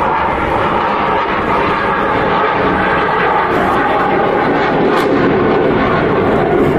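Loud, steady roar of a fighter jet's engine flying overhead in formation with a propeller plane. The pitch of the roar sinks slowly as the aircraft pass.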